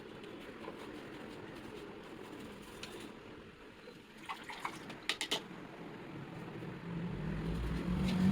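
Dry brush scrubbing dust off a table fan's motor housing, a steady scratchy rustle. About four to five seconds in come a few short sharp high sounds, and near the end a low engine rumble rises, like a vehicle passing.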